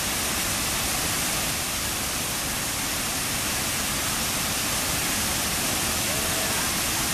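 Steady rush of fast river water over a waterfall and its rapids, an even hiss that never lets up.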